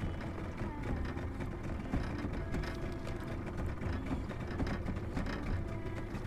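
A spinning reel being cranked steadily to wind a squid jig up, with faint ticking from the reel, over a steady low rumble.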